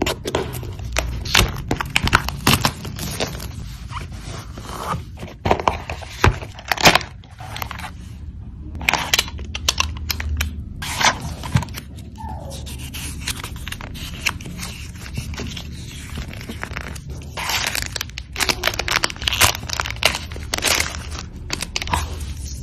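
Unboxing a vape kit: plastic shrink wrap slit and torn off the box, then cardboard packaging and a paper manual handled, with irregular crinkling, scraping and tearing full of sharp crackles.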